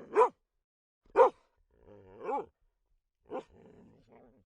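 A dog barking in single, separate barks: two sharp loud ones in the first second and a half, a longer pitched bark about two seconds in, then a short bark that trails into a brief low growl.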